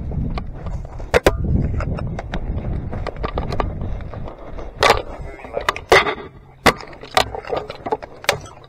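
Dry brush and branches rustling and scraping against the camera and gear as a player pushes through shrubs, with footsteps on sandy dirt and scattered sharp snaps and clicks, the loudest about a second in and again around five to seven seconds in.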